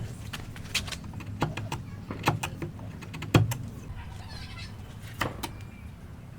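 Sharp knocks and taps of hand-tool work on wood, coming at uneven intervals with the strongest about halfway through, over a low steady hum.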